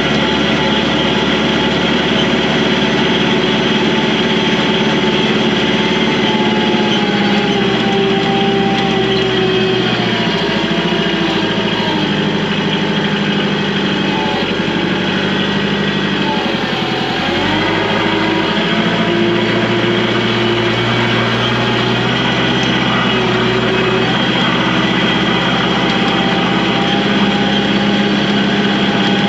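A vehicle's engine running steadily while being driven, its pitch shifting and wavering for several seconds around the middle before settling again.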